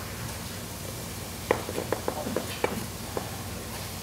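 Chef's knife dicing daikon radish on a wooden cutting board: a quick, uneven run of about a dozen knife taps on the board, starting about a second and a half in.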